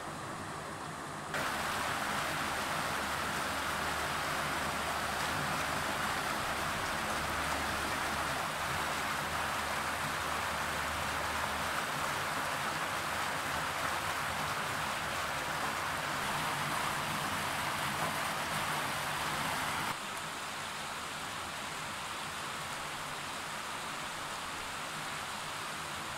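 River whitewater rushing steadily over rocks. About twenty seconds in it gives way to a quieter, steady wash of flowing water.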